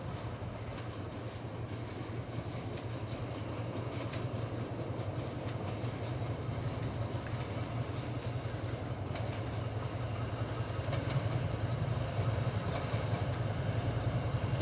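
Steady low rumble and hum of a train, growing gradually louder, with short high chirps in the middle.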